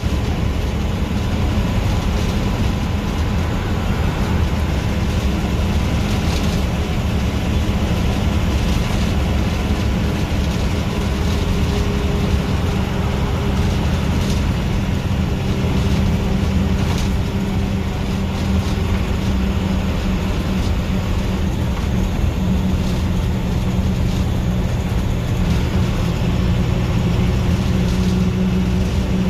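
Bus engine and road noise heard from inside the cabin at the front while cruising on a highway: a steady low drone, with a faint higher whine joining about ten seconds in.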